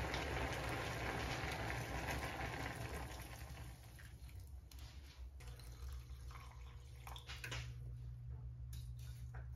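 Running water that stops about three and a half seconds in, leaving a low steady hum and a few light clicks.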